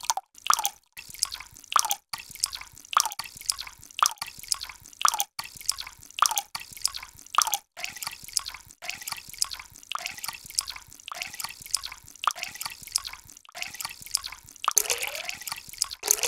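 Water drops falling into water: a quick series of short, ringing plops, each rising in pitch, several a second. Near the end the drops come thicker and louder, almost a trickle.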